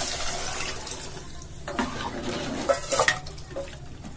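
A metal ladle stirs tomato rasam in a metal pot, scraping, with a few sharp knocks against the pot about three seconds in. A hiss fades away in the first second.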